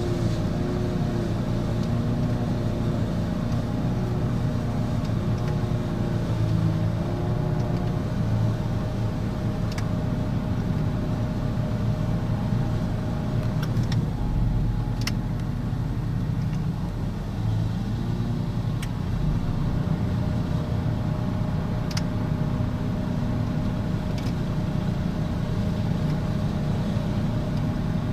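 The Honda GXV160 single-cylinder engine of a remote-controlled mower running steadily while cutting rough grass, its note dipping briefly now and then. A few sharp ticks sound over it.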